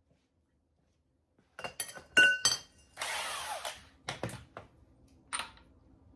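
Metal hand tools clanking and ringing several times, then a short scraping rush lasting under a second and a few more knocks, as a breaker bar and socket are handled for the crankshaft pulley bolt.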